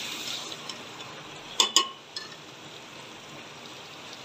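A steel spoon stirring a thick tinda and chicken curry in an aluminium pot, scraping at first, then one ringing metal clink against the pot about halfway through and a small tap just after.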